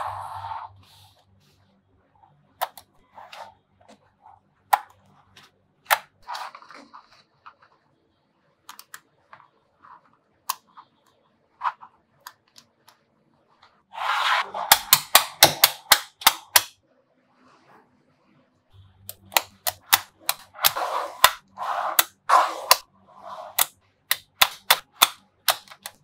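Small neodymium magnetic balls clicking as they snap onto one another: scattered single clicks at first, then quick rattling runs of clicks about halfway through and again through the last several seconds as balls are pressed into a block.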